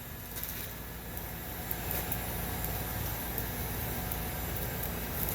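Propane smoker's burner running with a steady low rumble, a little louder from about two seconds in, with faint light ticks over it.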